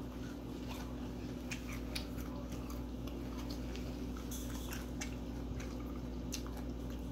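A person chewing food close to the microphone, with many small irregular clicks and wet mouth sounds. A steady low hum runs underneath.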